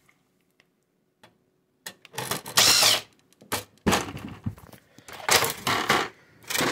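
Several short bursts of scraping and rattling, starting about two seconds in, as the printer's main circuit board is pulled free from its plastic chassis.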